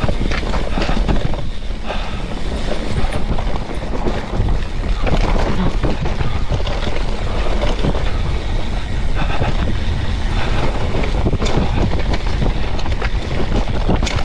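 Hardtail mountain bike being ridden fast down a rough trail: a continuous clattering rattle of the bike and tyres over the rough ground, with a heavy low rumble.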